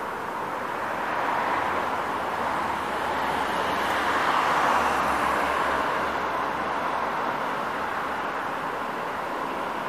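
Road traffic: cars driving past on asphalt, a steady rush of tyre noise that swells to its loudest around the middle and eases off again.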